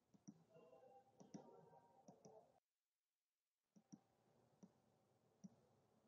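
Near silence: faint scattered clicks over a low background hiss, dropping out to dead silence for about a second in the middle.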